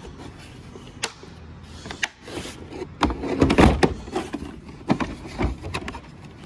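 Hard plastic torque wrench case being shut and handled in a tool box drawer: a couple of sharp clicks, then a cluster of plastic knocks and rattles partway through, with a few more clicks after.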